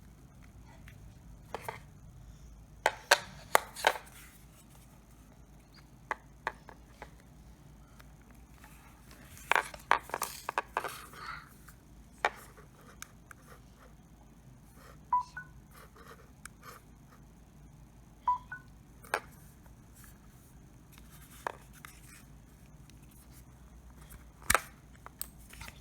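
Handling noises from unboxing a power bank: scattered sharp clicks and taps of the device and its plastic packaging, with a brief stretch of rustling about ten seconds in. Two faint short pips come partway through.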